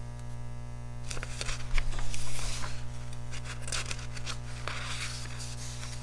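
Sketchbook paper rustling and scraping as a page is handled and turned, in a run of soft rustles from about a second in to near the end, over a steady low hum.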